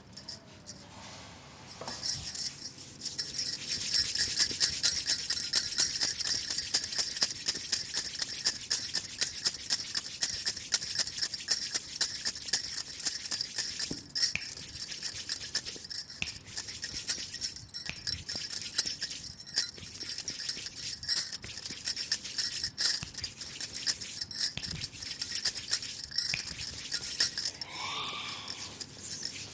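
Rapid, continuous metallic jingling and rattling, starting about two seconds in, made of many fine ticks.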